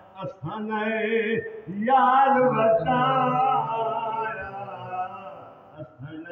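A man singing a Punjabi naat unaccompanied, in long held lines with a wavering vibrato. There is a short break about a second and a half in, then a long phrase that fades near the end.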